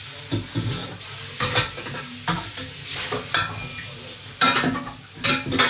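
Metal cookware being handled at a kitchen sink: a metal colander or pan knocks and scrapes against the sink several times, each knock ringing briefly, over a steady hiss.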